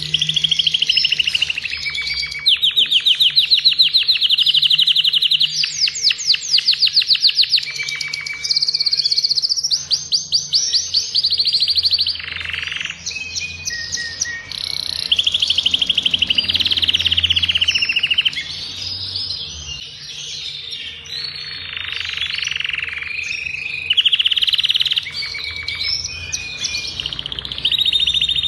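Adult male agate canary singing continuously in full song: fast rolling trills of rapidly repeated high notes, each run lasting a second or two before switching straight into the next, with short chirps between.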